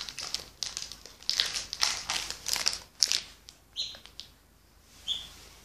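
Rustling and crinkling close to the microphone in irregular bursts, busiest in the first three seconds, then two brief high-pitched squeaks.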